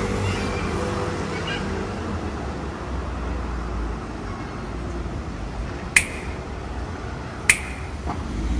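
City street ambience: a steady low traffic rumble, with two sharp ticks about a second and a half apart near the end.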